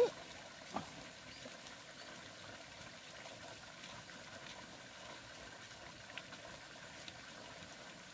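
Faint steady watery hiss with a few small soft splashes and clicks as hands work in shallow muddy water along the bank. A short, loud blip comes right at the start.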